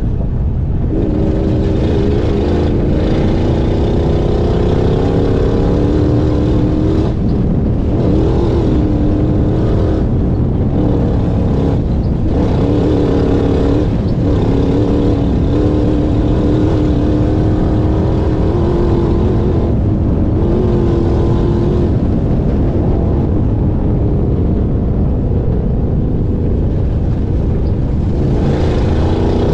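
Off-road race car's engine driven hard on a dirt track, its pitch climbing and dropping again and again with throttle and gear changes and short lifts off the throttle. A heavy low rumble of wind and rough ground runs underneath.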